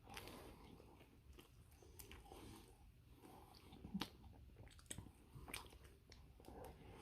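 Quiet close-miked chewing of a chili dog: soft wet mouth smacks and small clicks, with a sharper click about four seconds in.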